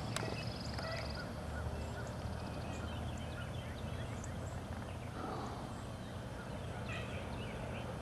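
Woodland birds calling, beginning with a fast, high, rattling trill that lasts about a second, then scattered short chirps, over a steady low rumble.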